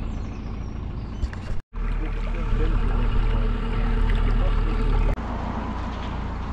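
Narrowboat's engine running steadily as the boat cruises along the canal: a low hum over water and wind noise. The sound breaks off for an instant about one and a half seconds in, and steps down to a quieter level just after five seconds.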